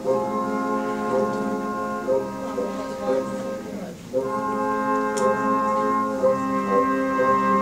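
Music of long held chords, with a short break about four seconds in.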